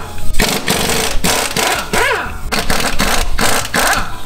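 Pneumatic impact wrench hammering in several short bursts, undoing the lug nuts on a pickup truck's rear wheel.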